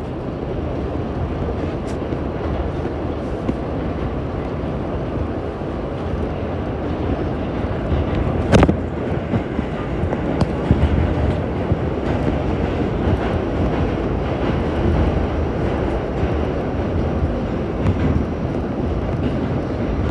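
Subway train running at speed, heard from inside the car: a steady rumble of wheels on rail, with one sharp knock about eight and a half seconds in.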